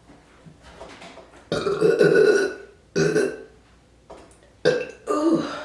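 A woman burping on command: one long, loud burp about a second and a half in, then a string of shorter burps.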